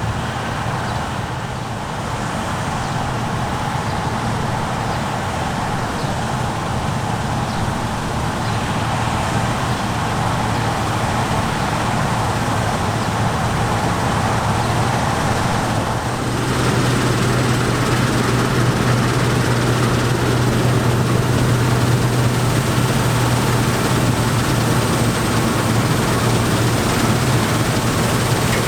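Heavy farm machinery at work: large diesel engines running steadily under load. About halfway through the sound shifts suddenly, and a steady low hum becomes stronger.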